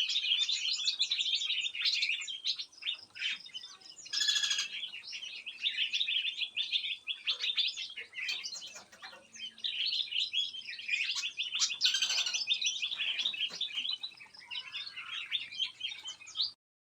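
Many small aviary songbirds chirping and twittering continuously, with two louder, harsher calls about four seconds and twelve seconds in. The sound cuts off abruptly near the end.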